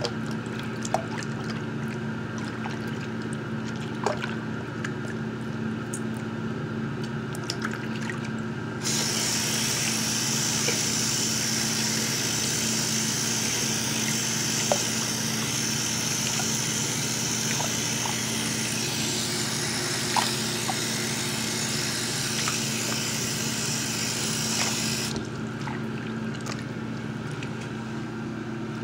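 Tap water running into a sink of soapy water: it starts suddenly about nine seconds in and stops suddenly near the end. A steady low hum runs throughout, with a few light clicks.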